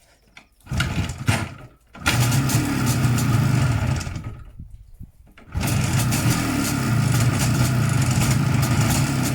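IZh Jupiter 5's two-cylinder two-stroke motorcycle engine started and running steadily. It falls away briefly about four to five seconds in, then runs on. The engine has a ringing knock that the owner puts down to the piston group, the wrist pin or the crankshaft, with the primary chain noisy as well.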